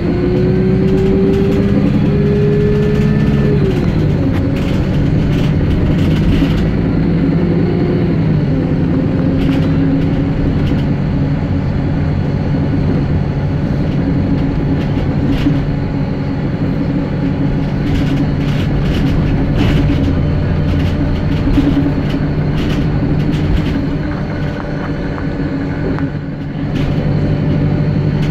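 Wright StreetLite single-deck bus heard from inside the passenger saloon while under way: the engine and drivetrain note rises for the first few seconds, then drops about four seconds in as the gearbox changes up, and runs on steadily with road noise and small rattles from the interior. The engine eases off about 24 seconds in and picks up again a couple of seconds later.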